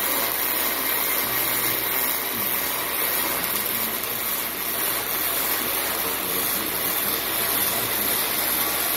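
Arc welding on sheet metal: a continuous welding arc giving a steady hiss that holds at an even level throughout.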